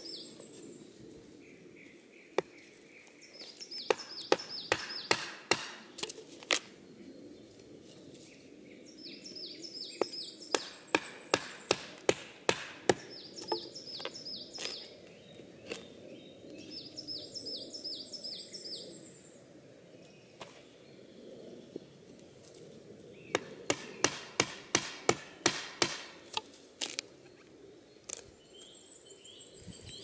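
A knife blade chopping into a rotten conifer stump, quick strikes in three bursts, prying off sections of resin-soaked fatwood. A bird sings the same short falling phrase over and over between the bursts.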